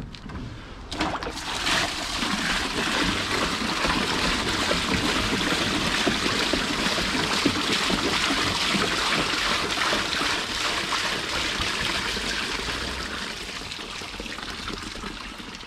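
Grey waste water pouring out of a portable waste-water tank into a drain. It starts about a second in, runs steadily, then tails off near the end as the tank empties.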